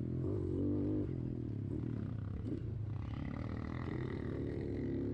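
Motorcycle engines running steadily, their pitch wavering slightly as the throttle varies.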